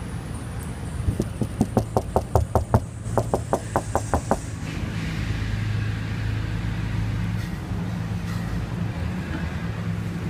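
A quick, even run of knocks on a car window, about twenty in three seconds. Then a steady low engine hum from a running vehicle.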